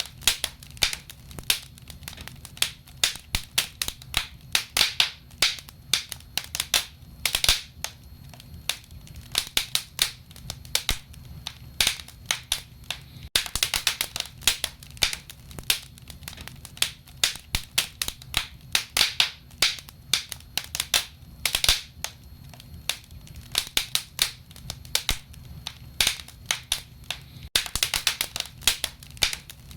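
Wood fire in a fireplace crackling and popping: many sharp, irregular pops, several a second, over a soft steady low rumble.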